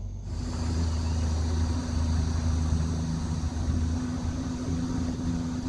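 Small fishing boat's outboard motor running steadily with the boat underway, coming in abruptly just after the start.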